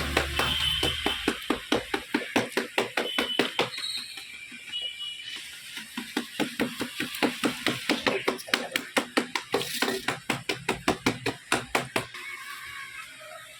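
Rapid, even knocking, about three to four strikes a second, with a few short high tones over it early on; the knocking stops near the end.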